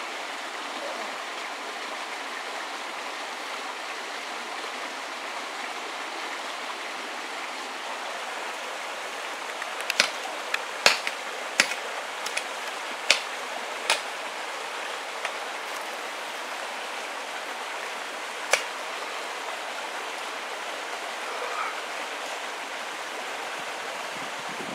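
Steady rushing of flowing water, like a stream. A run of sharp clicks comes about ten to fourteen seconds in, and a single click follows a few seconds later.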